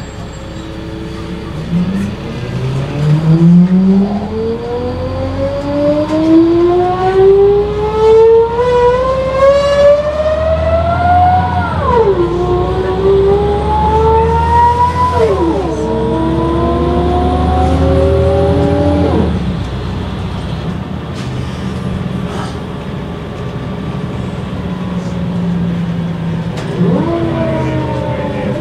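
A city bus's ZF six-speed automatic gearbox, which the uploader believes is a 6HP504, whining very loudly behind a CAT C7 diesel as the bus accelerates away. The whine climbs in pitch through first gear, drops sharply at each of three upshifts and climbs again, then settles to a steadier note, with the engine's low rumble underneath. It is heard from inside the bus.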